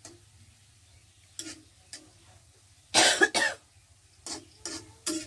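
A person coughing twice in quick succession about three seconds in. Around it are short scrapes of a metal spatula stirring food in a wok.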